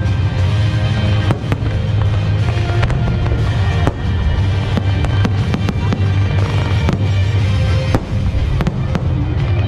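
Aerial firework shells bursting, many sharp bangs in quick succession, with music playing underneath.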